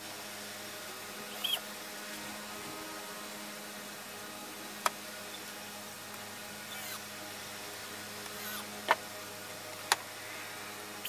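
Workshop handling sounds on a plywood box and its lid: a few sharp clicks and short squeaks over a steady hum.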